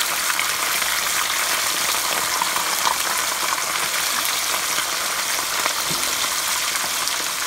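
Whole butterfish deep-frying in hot oil in a pan: a steady, dense crackling sizzle of oil bubbling around the fish.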